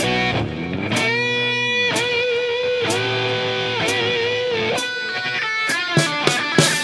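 Electric guitar playing a slow blues intro, with long sustained notes bent in pitch and shaken with vibrato, over bass guitar and drum hits about once a second. A quick drum fill comes near the end.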